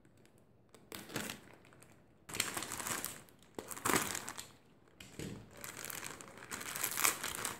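A plastic courier mailer bag crinkles as it is handled, slit with a utility knife and torn open by hand. It is soft at first, then comes in louder, irregular crackling bursts from about two seconds in.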